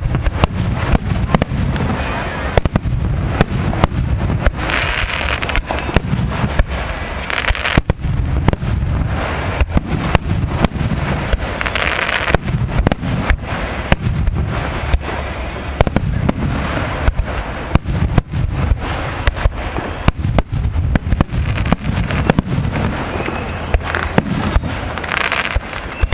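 Fireworks bursting in quick, continuous succession: many sharp bangs, several a second, with crackling noise between them.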